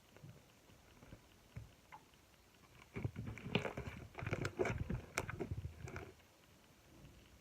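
Slime being squished and poked by hand: a few faint clicks, then from about three seconds in a quick run of squelchy clicks and small pops that stops about six seconds in.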